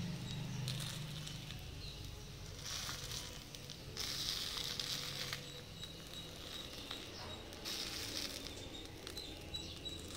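Hot oil in a cast-iron paniyaram pan sizzling in three short bursts as cooked paniyarams are lifted out of the wells with a metal skewer, with a few faint clicks of the skewer against the pan.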